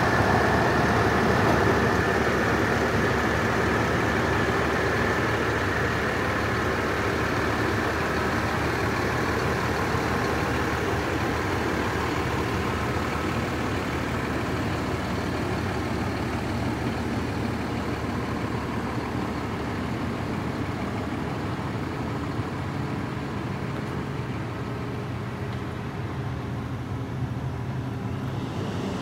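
Diesel engine of a Sutphen custom fire pumper idling steadily, with a high whine at first that fades out. The sound grows gradually fainter as the listener moves from the front of the truck to the rear.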